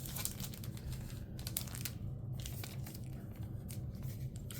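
Trading cards and their plastic packaging being handled, rustling and crinkling in small irregular crackles, over a steady low hum.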